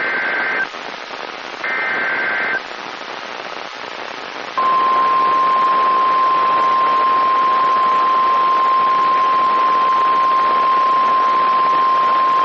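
NOAA Weather Radio alert over radio static: the last two SAME header data bursts, each a harsh buzzing screech about a second long, then after a couple of seconds of hiss the steady single-pitch warning alarm tone starts and holds. The sequence announces a warning message about to be read.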